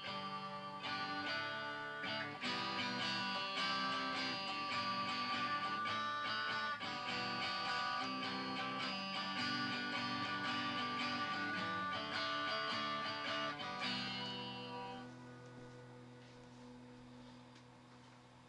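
Guitar strumming chords with no singing, fading away over the last few seconds.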